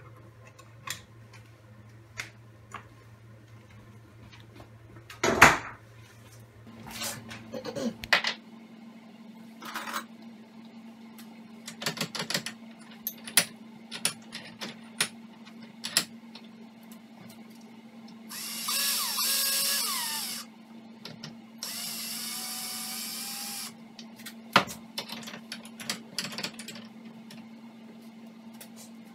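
Workshop work sounds: sharp knocks and clicks of tools and parts being handled and clamped, over a low steady hum. There are two short runs of a power drill, about two seconds each, past the middle; the first wavers in speed and the second is steady.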